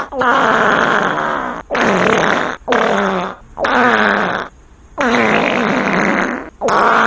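Fart sound effects: a rapid run of about six loud farts, each about a second long with brief gaps between, the pitch sagging downward in most of them.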